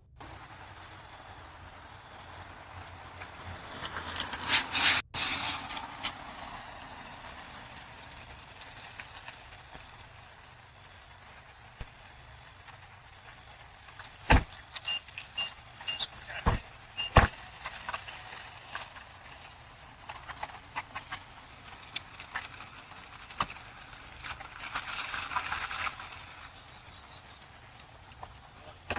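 Crickets chirping in a steady high drone. A brief rustling noise comes about four seconds in, and a few sharp clicks or knocks come a little past halfway.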